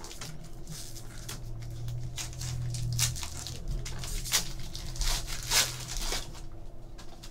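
Foil wrapper of a Topps Chrome trading-card pack being torn open and peeled back by hand, with crinkling throughout and sharper tearing sounds about three seconds in and several more around four to six seconds in.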